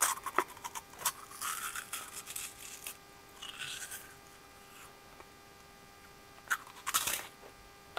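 Someone chewing freeze-dried Milk Duds close to the microphone: irregular crunches and small clicks through the first half, a pause, then a few more about seven seconds in.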